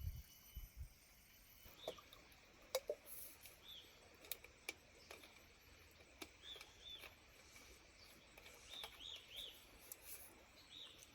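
Quiet outdoor background with faint short bird chirps repeating now and then, and a few light clicks.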